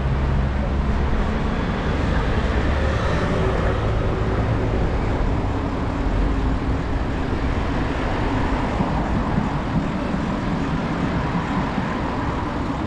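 City road traffic noise: passing vehicles and a steady low rumble.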